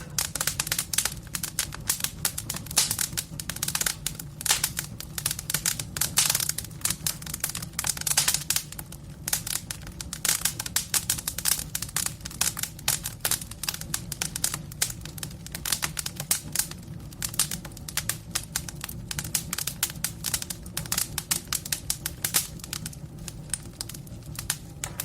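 Wood fire in a fireplace crackling with a dense, irregular stream of pops and snaps, with hissing from burning wet wood.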